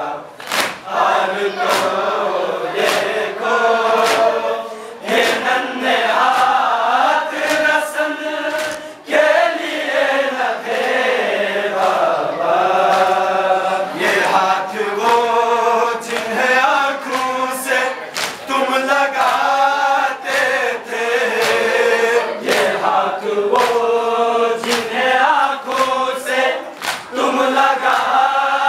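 A group of men chanting a noha, a Shia Muharram lament, in unison, to a steady beat of open hands slapping their chests (matam) about once a second.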